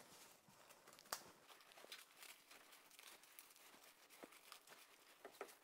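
Faint crinkling and crackling of plastic cling film being folded and pressed around a ball of cookie dough, with one sharper click about a second in.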